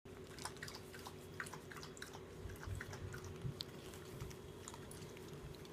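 Faint scattered clicks and soft knocks of a nearly three-week-old puppy chewing and mouthing, over a steady low hum.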